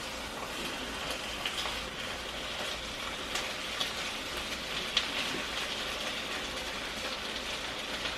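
Turkey bacon sizzling in a frying pan: a steady crackling hiss with occasional small pops.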